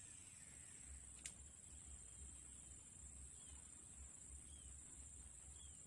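Faint steady high-pitched insect drone. Just after a lure cast, a faint falling whine from the casting reel's spool dies away, and a sharp click comes about a second in. From about halfway, short chirps repeat roughly once a second.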